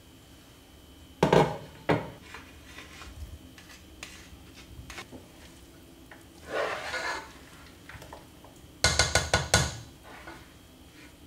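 Cookware handling: a clatter about a second in as the glass pot lid is set down, then a spoon stirring and scraping through cooked rice in a large pot, with a quick run of about six sharp knocks against the pot near the end.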